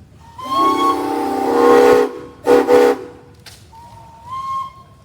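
Steam engine whistles blowing at a whistle blow: a long deep multi-tone chime blast with a thinner whistle over it, then a short second blast. Near the end a single thin whistle sounds briefly.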